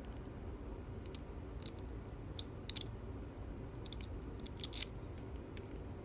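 Scattered light clicks and metallic taps from handling the parts of a disassembled lock and the small tools used to gut it, with a louder cluster of clicks about three-quarters of the way through.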